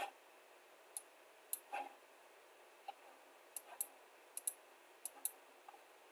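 Computer mouse clicking: about eight short, sharp clicks at irregular intervals, some in quick pairs, over a faint steady hiss.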